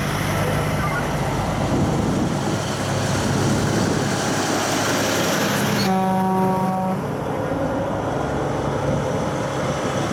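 Convoy of Kenworth trucks passing at road speed, diesel engines running steadily. About six seconds in, a truck horn sounds once for about a second.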